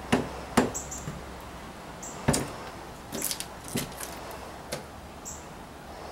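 Boots stepping on old wooden stairs: a handful of irregular knocks and thumps, the loudest about two seconds in, with a few brief high squeaks.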